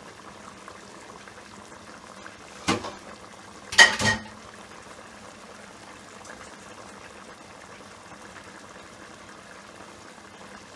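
Tomato sauce simmering and bubbling steadily in a pan on a gas burner, with two sharp clatters of cookware about three and four seconds in, the second one the loudest.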